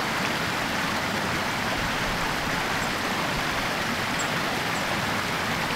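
Shallow creek running over stones, a steady rushing of water.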